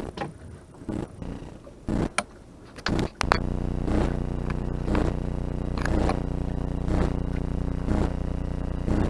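A few scattered knocks and clatters, then about three seconds in a small motor on the boat starts and runs steadily with a slight pulse about once a second.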